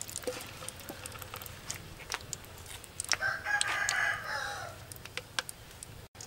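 A rooster crows once, for about a second and a half, starting about three seconds in. Underneath are scattered ticks and a light sizzle from sliced root frying in a wok of hot oil.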